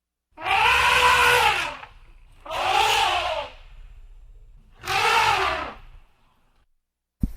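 Elephant trumpeting: three loud trumpet blasts of about a second each, every one rising and then falling in pitch, with a low rumble between them. Just at the end, a click and the start of another trumpet.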